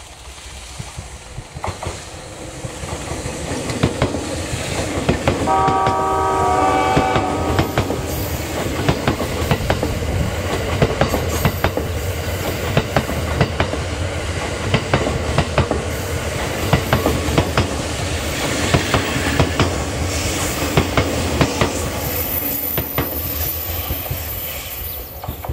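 The JR East E001 Shiki-shima cruise train sounds a horn chord of several tones for about two seconds as it approaches. It then passes close by for about twenty seconds, its wheels making a steady run of clicks over the rail joints, and fades away near the end.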